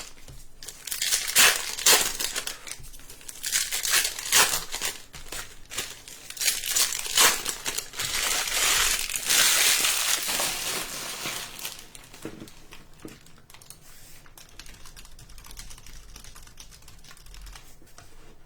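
Plastic trading-card pack wrappers being crinkled and torn open, a dense run of sharp crackles over about the first twelve seconds, then softer rustling and handling.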